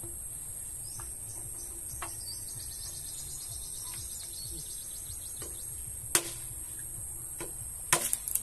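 Machete (bolo) strikes: one sharp chop about six seconds in, then a quick cluster of chops near the end. Under them runs a steady high insect drone.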